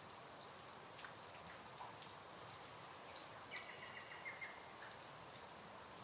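Faint steady summer rain, with scattered single drops landing close by. A little past halfway comes a brief run of quick, high chirps.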